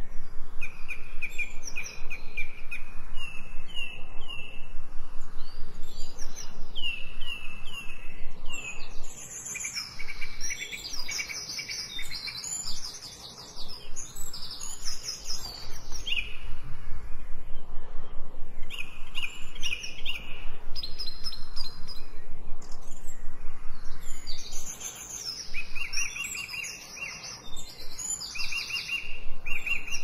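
Songbirds chirping and singing: runs of short repeated high notes and quick trills, with more than one bird calling at once in places.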